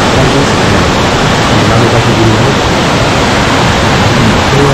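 Loud, steady rushing of the Yudaki waterfall, water cascading down the rock face.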